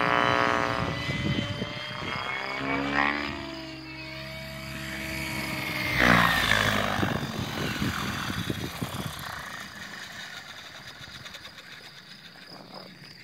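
GAUI X7 electric RC helicopter flying: rotor buzz and motor whine that swing up and down in pitch as it passes, loudest as it sweeps low about six seconds in, then fading as it lands and the rotor winds down. Wind rumbles on the microphone.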